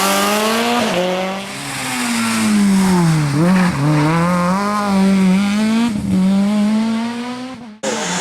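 Rally car engine revving hard on a stage. Its pitch drops away from about a second in as it slows, then climbs again through the gears. The sound cuts off abruptly near the end.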